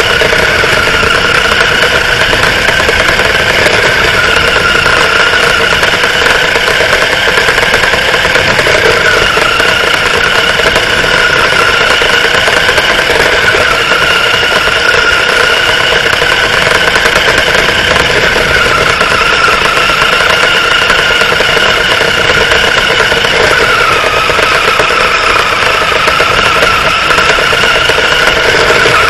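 Radio-controlled car running down an asphalt road, its motor and drivetrain giving a loud, steady whine that wavers slightly in pitch, over rough rattling road noise.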